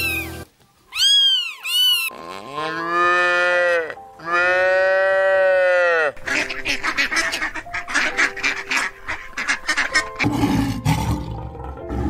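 A cat meowing in three short, high calls, then a cow mooing twice in long calls, over light background music. After that comes a rapid run of harsh pulses, and near the end a low rumble.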